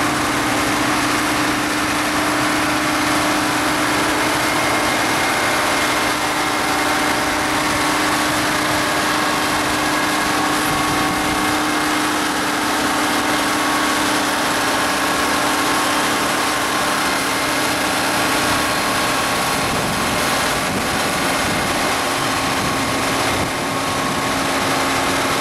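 Versatile D-100 articulated tractor's Ford diesel engine running steadily while it pulls the drag sled, with an even drone that drops slightly in pitch about two-thirds of the way through.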